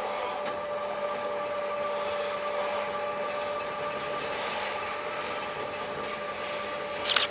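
BDZ class 07 'Ludmilla' diesel locomotive (V16 diesel) running as it approaches at the head of a freight train, a steady engine hum with a high whine over it, swelling slightly as it draws nearer. A brief sharp sound near the end.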